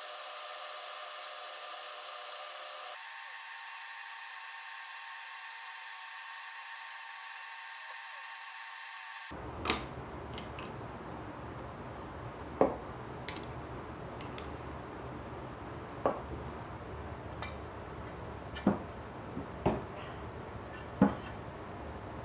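Sharp knocks and clicks of hand tools and metal vise parts against a wooden workbench, about six in the last twelve seconds, while a vise with a wooden jaw is assembled. Before that, a steady, thin edited sound with no bass and several held tones stops suddenly about nine seconds in.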